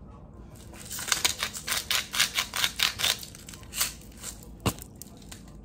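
A hand-held spice container worked over raw salmon to season it: a quick run of crisp rattling clicks, about four to five a second, for roughly two seconds, then a few scattered clicks and one sharp knock near the end.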